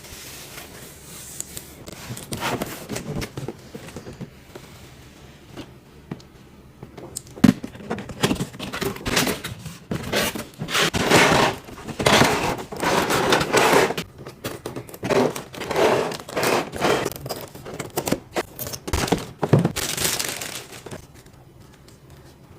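Figure packaging being opened by hand: irregular tearing, rustling and crinkling of plastic wrap and cardboard, busiest through the middle and dying away near the end.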